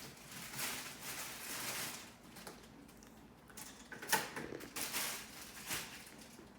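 Soft rustling and scraping handling noises, with a sharper click about four seconds in.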